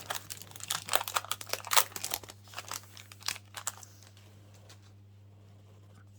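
The foil wrapper of a Pokémon trading-card booster pack being torn open and crinkled: a quick run of crackles and rips for about four seconds that then stops.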